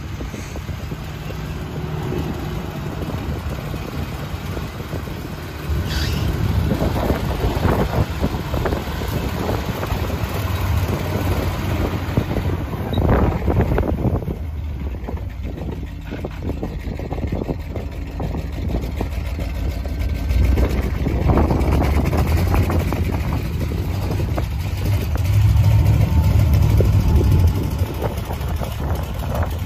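The 1973 Chevrolet C65 grain truck's gasoline V8 running with a steady low rumble, getting louder in spells several times as the engine is revved or put under load.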